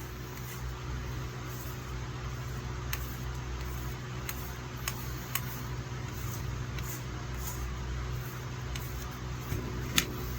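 Steady low electric hum with a few sharp, light clicks scattered through it.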